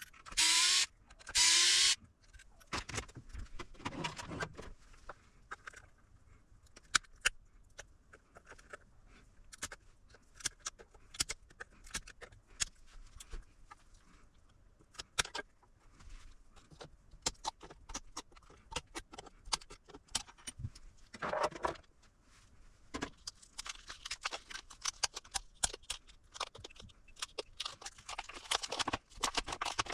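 Two short whirring bursts from a small power tool in the first two seconds, each rising slightly in pitch as it spins up. Then scattered clicks, taps and clatter of small parts and hand tools on a workbench, busier near the end.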